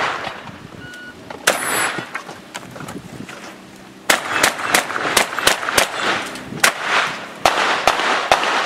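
Shotgun shots on a practical shooting stage: one shot about a second and a half in, then after a pause a fast string of about a dozen shots, roughly three a second, each followed by a short echo.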